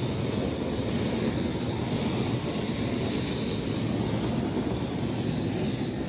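LPG flame-gun burner burning with a steady, even rushing hiss of gas flame.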